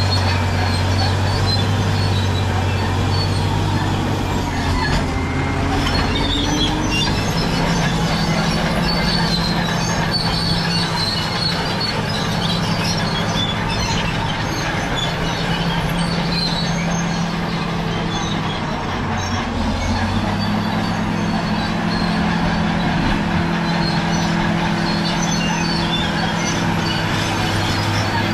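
Caterpillar D7G bulldozer's six-cylinder diesel running under working load, its engine note dropping about five seconds in and picking up again about twenty seconds in, with the steel tracks clanking and squealing throughout.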